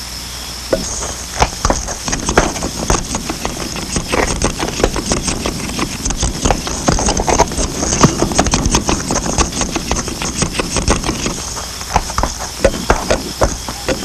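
Dense, irregular clatter of footsteps and knocks, starting about a second in and easing near the end, as a cannon crew moves about the gun and readies it for firing.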